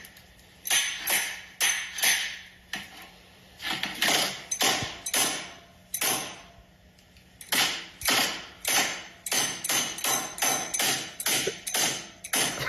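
Adjustable wrench striking the cracked glass screen of a Samsung Galaxy S7 edge again and again, metal knocking on shattered glass at about two blows a second, with two short pauses along the way.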